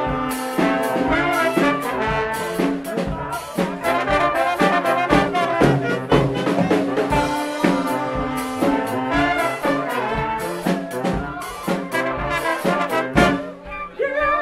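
Brass band playing live: trombone, trumpets, saxophones and clarinet over a steady drum beat.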